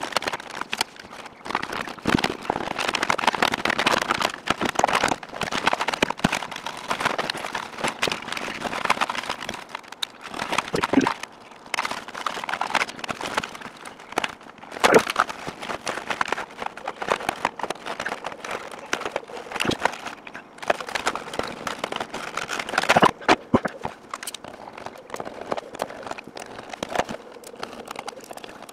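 Plastic dash and center-console trim of a Lexus SC being pried and pulled loose by hand: irregular clicks, knocks and rattles of panels, clips and wiring connectors, with rustling between them.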